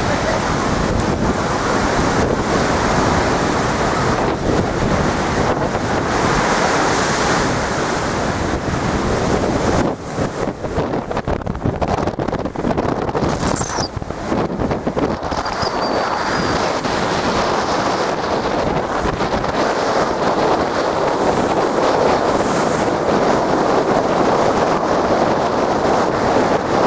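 Storm waves surging and breaking against a sea wall in a continuous rush of water, with wind buffeting the microphone. The surf eases and turns choppier for a few seconds about ten seconds in.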